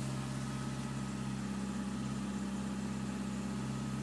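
1979 Plymouth Horizon TC3's 1.7-litre four-cylinder engine idling steadily and smoothly while still warming up after a cold start, heard from inside the cabin.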